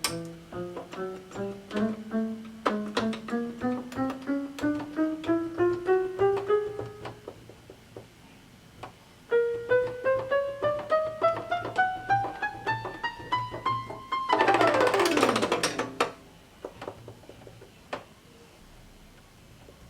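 Casio SA-75 electronic keyboard played one key at a time up the keyboard in two rising runs of notes, with a pause between them. A loud, noisy burst with a pitch sweeping downward follows for under two seconds, then faint clicks.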